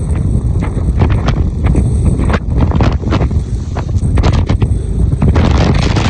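Heavy wind buffeting the microphone over a rough sea, with a wave breaking and rushing near the end.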